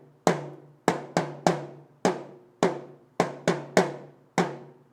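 Small drum struck about ten times in an uneven rhythm, each hit sharp with a short ringing decay.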